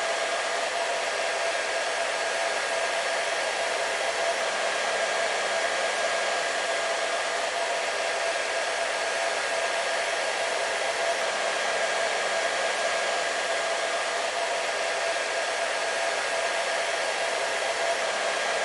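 Hair dryer running steadily: a constant rushing hiss of blown air with a steady motor whine, unchanging throughout.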